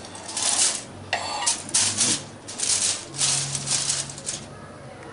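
Aluminium foil crinkling and rustling in about five short bursts as a foil-sealed pot is handled.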